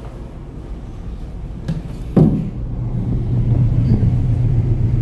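Low, steady drone of a car ferry's engines and machinery, growing louder, with one heavy thump a little over two seconds in.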